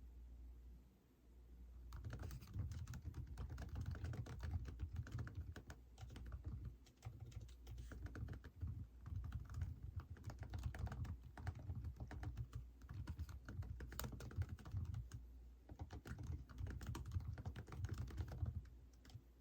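Computer keyboard being typed on in steady runs of rapid key clicks, with brief pauses. The typing starts about two seconds in and stops shortly before the end.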